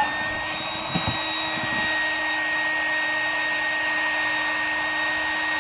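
Electric air pump running steadily with a constant whine, slowly inflating an inflatable boat. A light knock about a second in.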